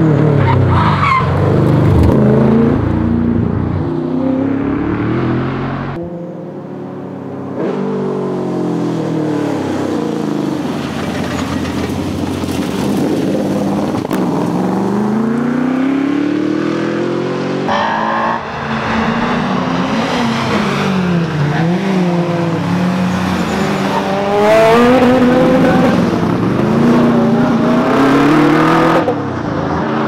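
Holden VH Commodore SS V8 rally car accelerating hard through the gears and passing, its engine pitch climbing and dropping at each gear change, over several edited passes.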